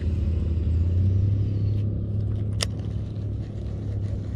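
Low, steady rumble of wind buffeting the microphone, swelling in the first second or two, with one sharp click about two and a half seconds in.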